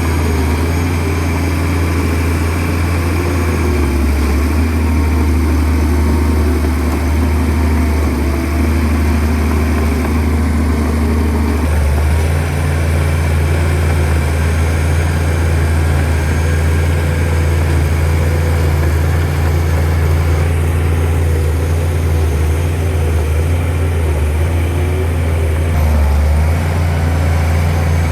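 Shantui DH17C2 bulldozer's diesel engine running steadily, its note shifting a little before halfway through.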